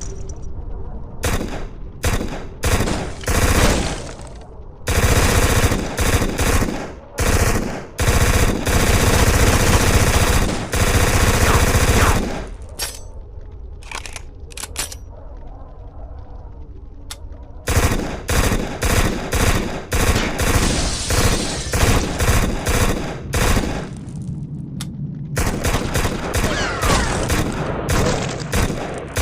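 Uzi submachine gun firing automatic bursts: several short bursts, one long burst of about four seconds, a lull with a few single shots, then a run of rapid short bursts and sustained fire near the end.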